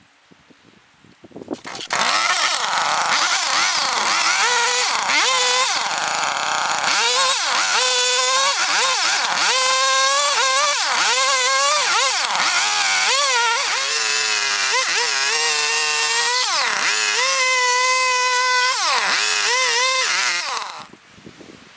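Gas chainsaw running as it cuts into a log, its engine pitch rising and falling over and over as the throttle is worked. It comes in about two seconds in and stops near the end.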